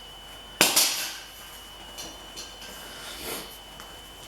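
A single sharp knock of hard objects being handled or set down, about half a second in, followed by a few faint clicks and rustles, over a faint steady high-pitched whine.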